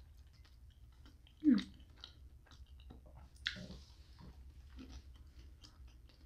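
Close-miked chewing and soft mouth sounds of people eating flaky apple-turnover pastry. A short hummed "mm" comes about one and a half seconds in, and a crisper crunch about three and a half seconds in.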